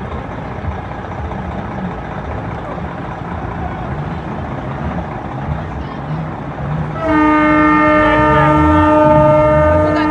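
A truck's air horn (a train-style horn) blows about seven seconds in: a loud, steady chord of several notes held without a break. Before it there is a low rumble and the murmur of a crowd.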